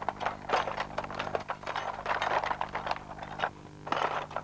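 Metal hand tools clinking and clattering against each other and the wooden box as a hand rummages through a toolbox, in a quick irregular run of clicks and rattles.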